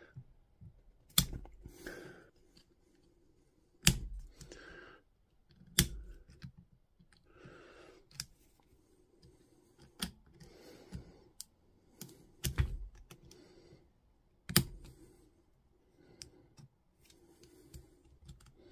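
Sharp metallic clicks about every two seconds, with soft scraping and handling noise between them: a ring being worked by hand onto the reassembled quick-release chuck of a Makita impact driver, snapping back as it is pushed over again and again.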